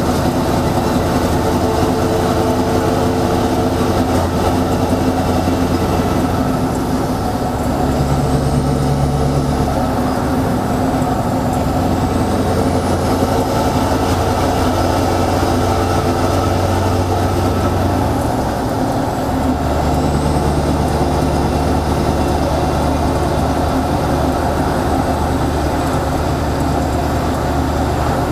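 Scania R620's 16-litre V8 diesel running through loud exhaust pipes as the loaded truck drives, a steady deep drone. The engine note changes a few times, dropping briefly about seven seconds in and again about nineteen seconds in.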